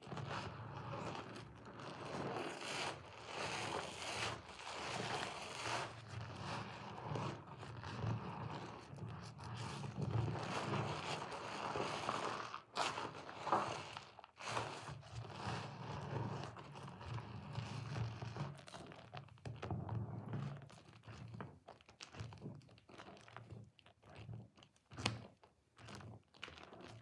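Soap-soaked sponge squeezed and kneaded by hand in thick lather: wet squishing and crackling of foam, swelling and easing with each squeeze.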